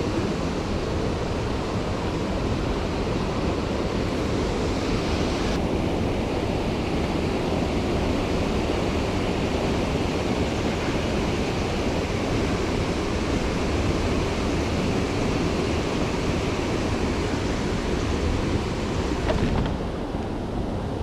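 Steady rush of flowing mountain-stream water, dipping slightly in level near the end.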